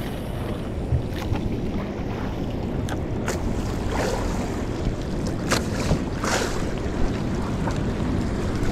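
Wind buffeting the microphone over choppy sea water lapping at a small outrigger boat, with several short, sharp splashes about three to six seconds in.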